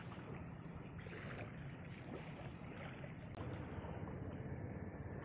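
Steady low wind rumble on the microphone over faint lapping of calm shallow seawater, a little louder from about three and a half seconds in.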